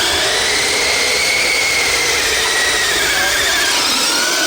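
RC pulling vehicle's motor whining at full power during a pull, the pitch climbing a little at first, then falling near the end as it slows.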